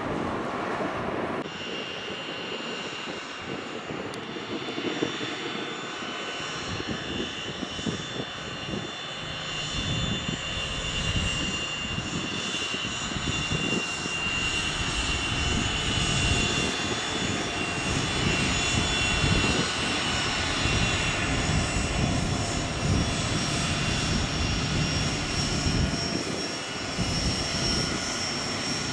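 Twin jet engines of a Gulfstream business jet running at low taxi power: a steady whine with several high held tones over a rushing noise. The sound changes abruptly about a second and a half in and grows louder in the second half.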